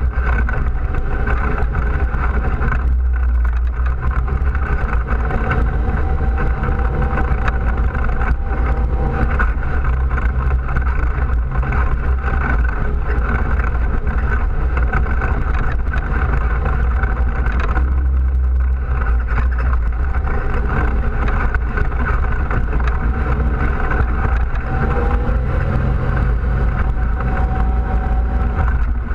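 ATV engine running steadily while riding along a gravel trail, its pitch dipping briefly about three seconds in and again around eighteen seconds.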